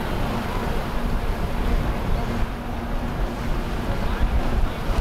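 Azimut 66 motor yacht passing under way: the low rumble of its diesel engines with a steady hum, and the rush of its bow wash, with wind buffeting the microphone.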